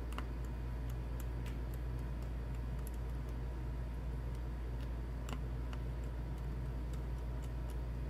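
Small, irregular clicks and ticks of a precision screwdriver and tiny laptop screws being worked out of a MacBook Pro's antenna bracket, over a steady low hum.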